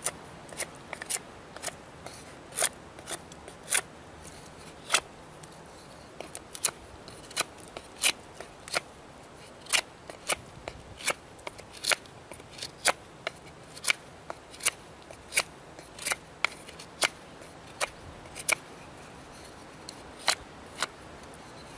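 Habilis Bush Tools Trapper knife shaving down a split wooden board, carving a bow-drill hearth board. Its blade bites the wood in crisp, irregular strokes, roughly two a second.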